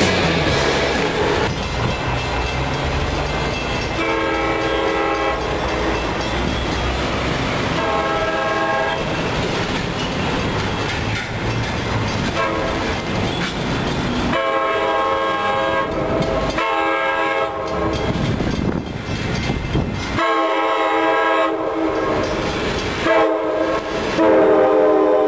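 Passenger train horn sounding a series of blasts over the rumble and clickety-clack of a train running past on street track. The blasts are short at first and become longer and closer together from about halfway through.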